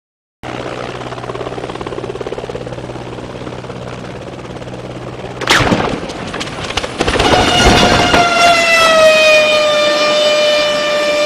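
Light single-engine helicopter hovering with a steady hum. About five and a half seconds in comes a loud crash with clattering debris as it strikes and hits the ground. After that a loud high whine slides down in pitch and then holds steady.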